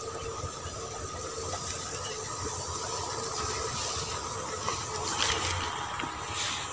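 Backpack sprayer nozzle hissing steadily as it mists chili plants, with a faint steady hum underneath. The hiss swells briefly about five seconds in.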